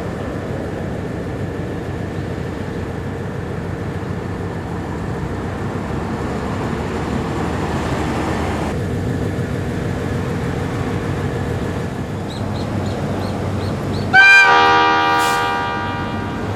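Diesel freight locomotive engine running steadily, then one loud horn blast near the end that fades away over a second or so.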